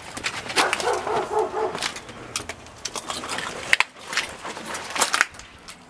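A dog barking, a quick run of barks about a second in, over footsteps and the crunch and knock of debris underfoot, with a couple of sharp knocks.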